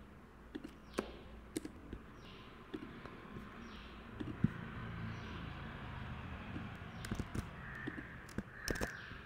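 Faint computer mouse clicks, single and in quick pairs, as a drawing on screen is selected and edited. Behind them a bird gives a short falling call over and over, about once a second.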